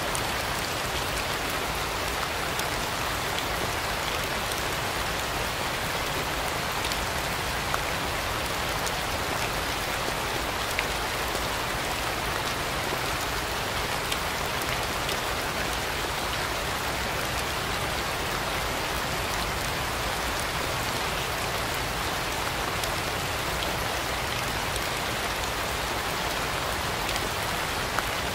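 Steady rain falling, an even continuous patter with a few slightly louder single drop ticks now and then.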